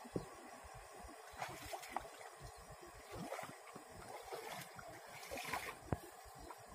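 Feet wading through shallow, muddy pond water: irregular splashing and sloshing, with a few sharp knocks scattered through.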